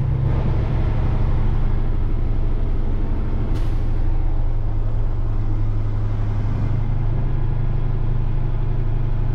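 Semi-truck diesel engine running steadily under way, heard inside the Peterbilt tractor's cab as a steady low drone. A short sharp hiss comes about three and a half seconds in.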